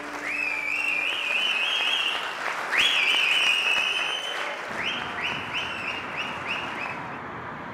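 Audience applauding. Over the clapping comes a high, shrill cheer: two long rising, wavering calls, then a string of short rising ones.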